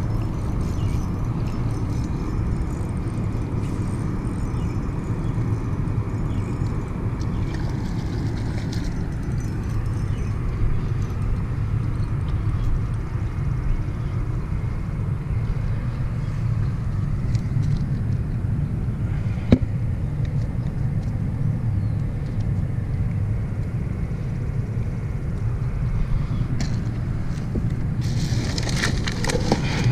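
Steady low rumble of wind buffeting the microphone, with a single sharp click about two-thirds of the way through. Near the end comes a crinkling rustle as a hand works at the bag of ice in a cooler.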